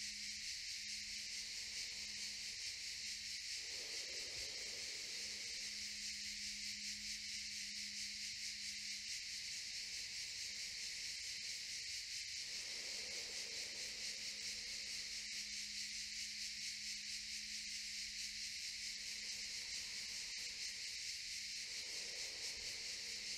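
Steady, high-pitched insect chirring with a fast pulse. Under it runs a faint low hum, and a soft lower swell returns about every nine seconds.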